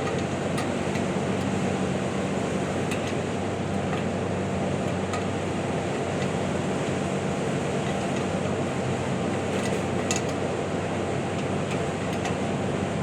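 Running machinery: a steady hum and noise with a low, even drone, with a few faint light clicks or clinks, one a little louder about ten seconds in.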